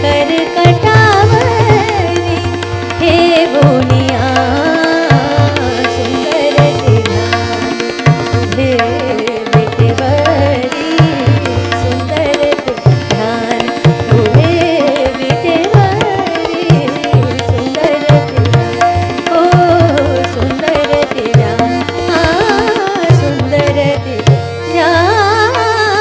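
Indian classical devotional music: tabla playing a steady rhythm, its low strokes repeating, under an ornamented, gliding melodic line over a steady drone.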